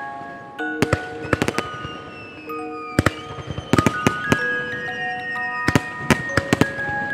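Bell-like music with held notes, over repeated sharp bangs and crackles of fireworks shells bursting, several coming in quick clusters.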